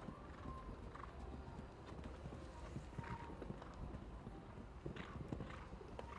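Hoofbeats of a horse cantering over sand footing: a continuous run of dull thuds, a few sharper strikes about three and five seconds in.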